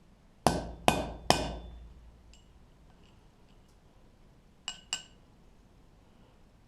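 Hammer striking a steel punch to stamp the pip marks into a metal die: three hard, ringing blows in quick succession about half a second in, a few faint clinks, then two lighter taps near the end.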